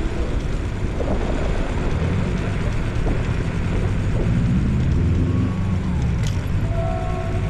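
Traffic noise heard from a moving electric scooter: wind buffeting the microphone and a low rumble, with a motor vehicle passing midway.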